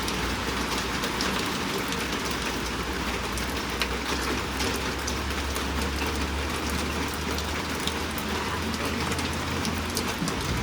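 Heavy rain falling: a dense, steady hiss made up of many individual drop ticks, with a low steady rumble underneath.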